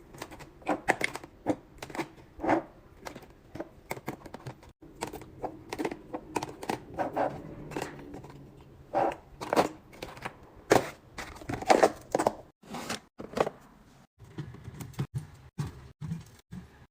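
Irregular taps, clicks and knocks of packaged snacks and plastic containers being handled, set down and slid into place, with short rustles of packaging between them.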